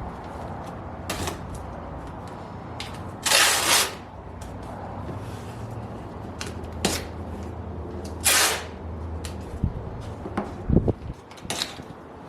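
Masking tape being pulled off the roll in short rasping rips, twice at length, among scattered clicks and taps of handling.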